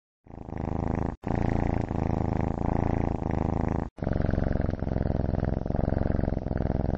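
Ginger cat purring, the purr swelling and fading with each breath in and out. It starts about a quarter second in and cuts out for a split second twice, about one and four seconds in.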